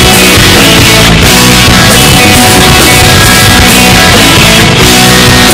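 Loud rock music with guitar.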